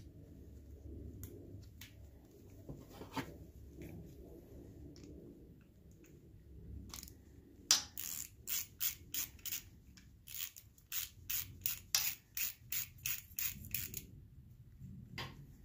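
Ratchet wrench clicking in a regular run of sharp clicks, about three a second, starting about halfway in, as it runs down the bolts of a small block Chevy's camshaft retaining plate. Faint handling and rubbing sounds come before it.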